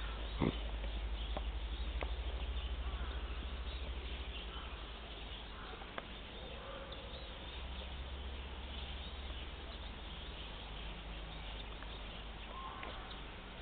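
Outdoor background with a steady low rumble, a couple of faint sharp clicks and faint chirps near the end.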